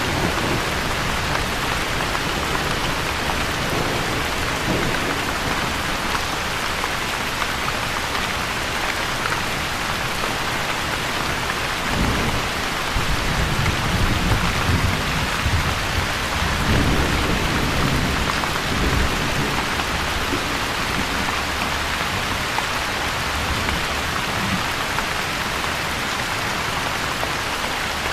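Steady heavy rain with low thunder rumbling in the background, the rumble swelling about halfway through.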